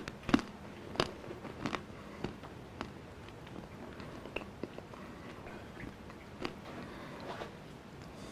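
Someone chewing crunchy communion bread close to the microphone: a run of sharp crunches in the first three seconds, then a few sparser, softer ones.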